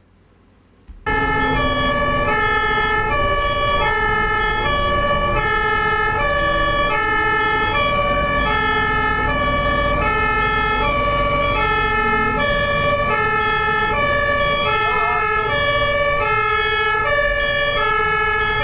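German ambulance's two-tone siren (Martinshorn), cutting in about a second in and alternating evenly between a high and a low note, over a low road rumble.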